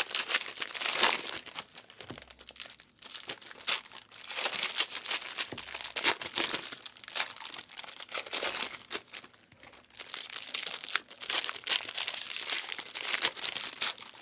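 Trading-card pack wrappers crinkling and tearing as packs are opened by hand, in irregular rustling bursts with short pauses.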